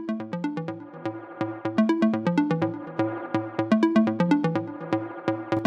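Background electronic music with a steady beat, a repeating bass line and synth notes.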